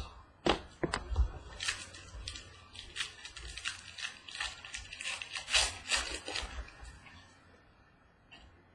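2014 Prizm World Cup soccer trading cards being handled and flipped through by hand: a run of quick clicks, snaps and rustles of card stock that goes on for about seven seconds and dies away near the end.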